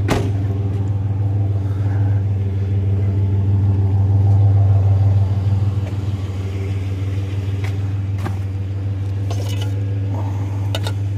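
Truck engine idling steadily, a low hum that eases slightly about six seconds in, with a few light clicks over it.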